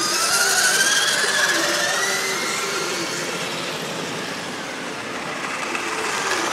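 Electric motors and gearboxes of radio-controlled scale off-road trucks whining as the trucks drive off a start ramp one after another; the main whine rises in pitch over the first couple of seconds, then fades.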